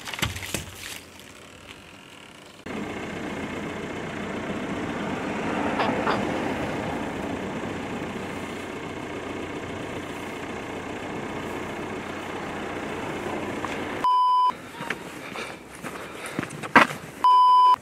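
Crackling of plastic squeeze pouches bursting under a car tyre, then a car engine running steadily for about ten seconds. Two short high beeps sound near the end, with a few sharp knocks between them.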